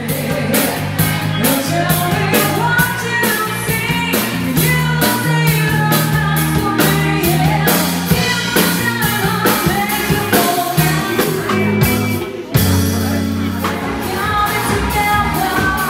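Live band playing an upbeat rock and roll song: a singer over guitar, bass and drums with a steady beat. About twelve seconds in, the music breaks off abruptly and picks up at another passage.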